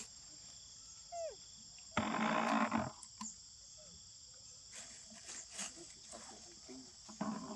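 Macaques calling: a short falling squeak about a second in, then a loud, harsh rasping call lasting nearly a second, over a steady high-pitched drone.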